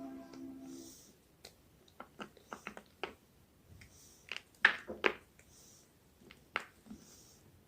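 Homemade gym chalk crunching in a series of sharp, crisp snaps spaced irregularly. The two loudest come about four and five seconds in.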